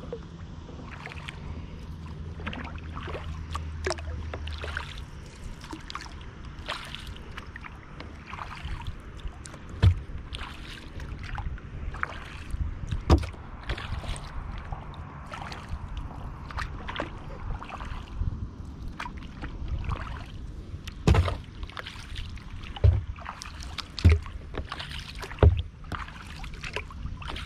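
Kayak paddle strokes on calm lake water: repeated splashes and drips from the blades alongside a Wilderness Systems Tsunami 120 touring kayak, with several louder low thumps in the second half. A steady low hum runs under the first few seconds.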